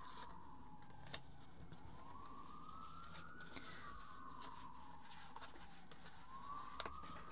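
Faint emergency-vehicle siren wailing, its pitch slowly rising and falling about every three seconds, with a few soft clicks of tarot cards being handled.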